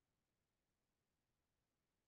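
Near silence: only a faint, steady noise floor.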